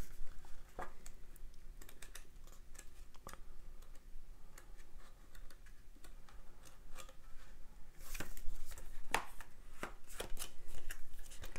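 Paper pages of a booklet being leafed through by hand: soft rustles and light ticks. About eight to ten seconds in come louder rustles and clicks as an open plastic disc case is handled.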